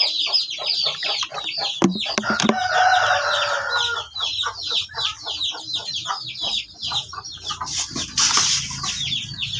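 Chickens peeping rapidly and without pause, a stream of short, high, downward chirps about five or six a second. A lower, drawn-out chicken call runs from about two to four seconds in, and a brief rustle of handling comes near the end.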